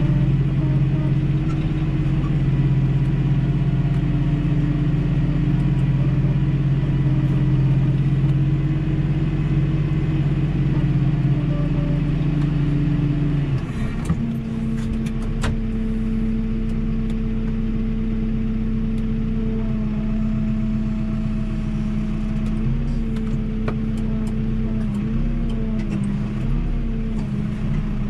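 Tractor's diesel engine running steadily, then throttled back to a lower, quieter idle about halfway through. A few sharp clicks and knocks follow.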